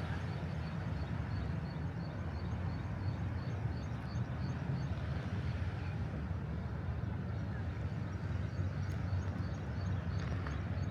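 Steady low outdoor rumble with no distinct events, and faint high chirps or ticks repeating throughout.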